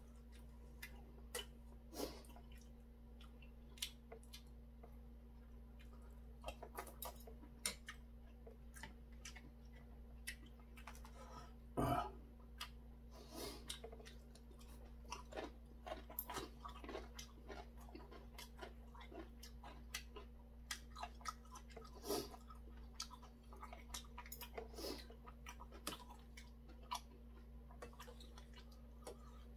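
A person chewing and eating boiled chicken and rice close to the microphone: wet mouth sounds with many short, irregular clicks and smacks, a louder one about twelve seconds in. A faint steady hum runs underneath.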